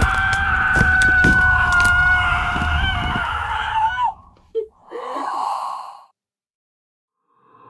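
Designed ghostly horror sound effect: eerie sustained high tones over a low rumble with scattered knocks, which fade out about three seconds in. Short breathy, sigh-like sounds follow, then silence.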